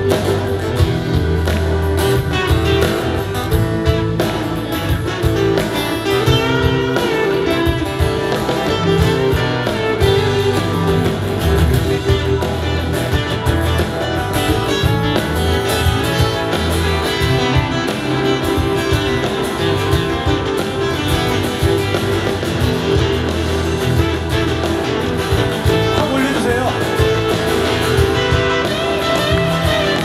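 Live pop band playing an instrumental passage of a song, with electric and acoustic guitars, keyboard and drums.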